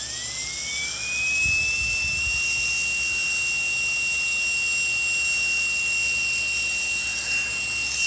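Turnigy 3542 brushless RC airplane motor running with no propeller: a high whine that rises in pitch over the first second and a half, then holds steady. It runs on newly fitted rubber-sealed bearings, which replaced worn ones that made it overheat, and sounds pretty good.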